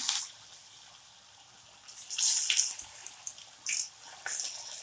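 Hot oil sizzling in a kadhai as rice-flour and potato vadas deep-fry, with a loud burst of hissing about two seconds in and sharper crackles near the end as another vada goes into the oil.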